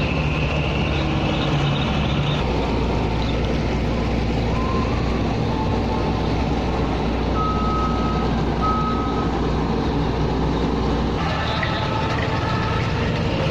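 Steady, loud mechanical rumble with a constant low hum, typical of a large ferry's engines and machinery heard on deck. Two short high beeps sound about halfway through, and the noise changes abruptly near the end.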